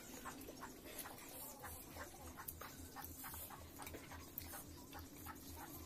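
Close-miked eating sounds: irregular small wet clicks and smacks of a mouth chewing rice and curry.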